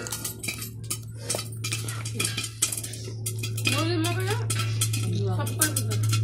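Rapid light clicks and clinks over a steady low hum. From a little past halfway, voice-like calls join in, rising and falling in pitch.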